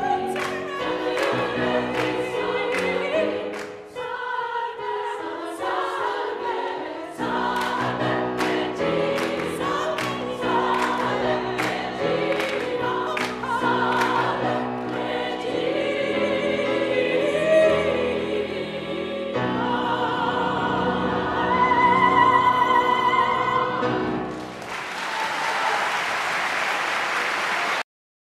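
Choir singing an upbeat gospel-style hymn with a female soloist on a microphone, the singers clapping on the beat. About 24 seconds in the singing gives way to applause, which cuts off suddenly near the end.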